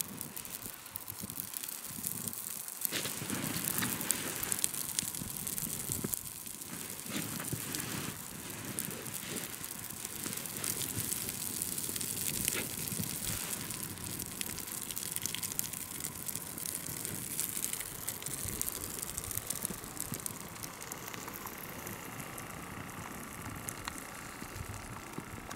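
Small wood campfire crackling and popping as the freshly lit kindling and split wood catch, with many quick irregular snaps over a light hiss.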